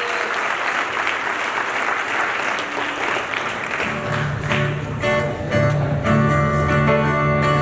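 Crowd applauding, then from about four seconds in, a band's guitar and bass playing sustained notes over the applause.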